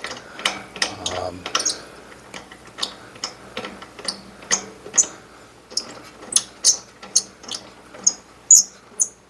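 Sharp metallic clicks at an uneven pace, about one or two a second, of a hand ratchet being worked on pinsetter hardware.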